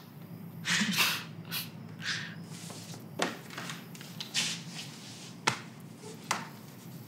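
Scattered soft clothing rustles, light taps and quiet breathy laughs as a man shifts along a bench and puts his arm around the man beside him, picked up close on a clip-on microphone. Two sharper clicks come about five and a half and six seconds in, and a faint steady hum runs underneath.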